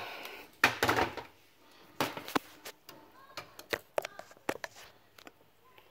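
Handling of a cordless stick vacuum's plastic housing: a string of sharp clicks and knocks, with a louder clatter about a second in and another about two seconds in. The motor is not running.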